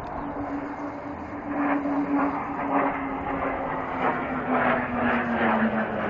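Aircraft engine drone overhead, one steady tone sinking slowly in pitch as the plane passes and moves away, over a rushing noise that swells and fades.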